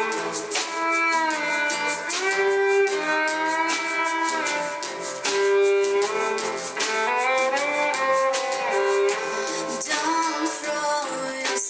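Live song performance: a voice singing a slow melody of long held notes over strummed acoustic guitar.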